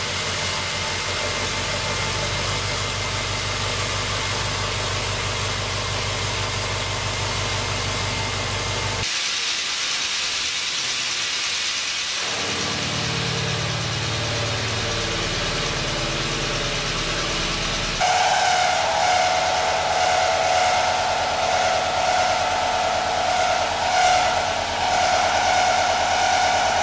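Hwacheon VESTA-1300B vertical machining center heavy-milling a metal block at full spindle load: first a 160 mm face mill at 367 rpm, then a 40 mm end mill at 1,000 rpm chewing through the block and throwing chips. About 18 seconds in, on a deeper end-mill cut, the cutting gets louder with a steady ringing whine.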